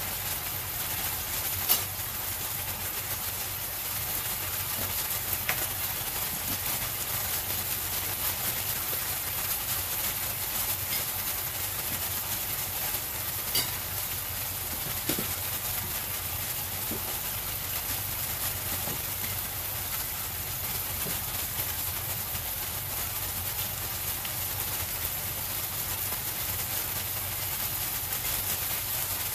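Pork loin steaks sizzling and bubbling in their sauce in a frying pan: a steady hiss with an occasional sharp pop.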